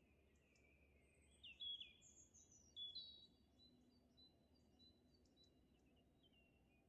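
Faint bird chirping over near-silent room tone, loudest as a few quick, high, sliding notes from about one and a half to three seconds in.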